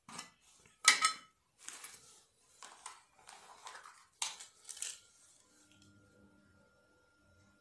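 Small metal tools and parts being handled and set down on a cloth: a run of clinks, knocks and rustles, the loudest about a second in, as a metal tin of soldering flux and its lid are put down. After about five seconds only a faint steady hum remains.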